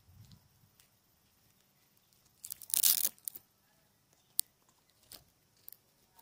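Handling noise on a body-worn camera: a short, loud ripping rasp of fabric rubbing against the camera about two and a half seconds in, followed by a few light clicks and taps.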